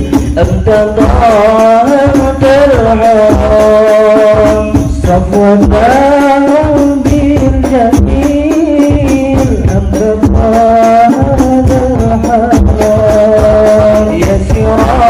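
Sholawat sung by male voices into microphones, with long held, ornamented notes, over a steady rhythmic beat of hand-struck Al Banjari frame drums (terbang).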